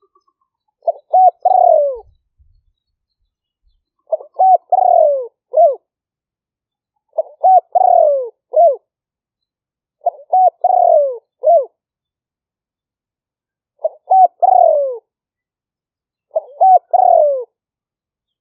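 Spotted dove cooing: six matching phrases about every three seconds, each a few quick notes running into a longer falling coo, then a short closing note. Between phrases there is nothing at all, as the background noise has been cut out.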